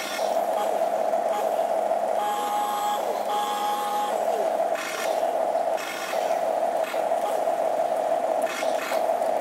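The small electric gear motors of a toy RC excavator whirring as its boom, arm and bucket move, stopping and starting several times with short breaks.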